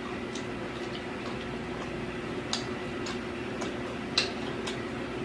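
Close-up eating sounds from chewing fried chicken: a handful of short, crisp mouth clicks and smacks at irregular moments, the sharpest about two and a half seconds and four seconds in, over a steady low hum.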